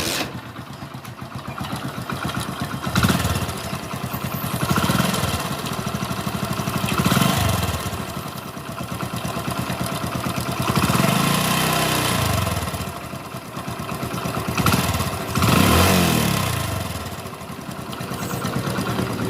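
Hero Honda Splendor Pro's single-cylinder four-stroke engine starting and running, blipped up and down about five times. A chik-chik chirp runs through it even with a new timing-chain kit fitted; the mechanic says it sounds like a seized bearing slipping, and suspects the camshaft in the head.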